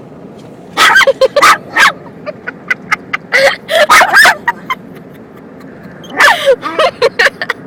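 Dog yipping and barking in quick, sharp bursts, a run of several calls in the first half, then a shorter run near the end.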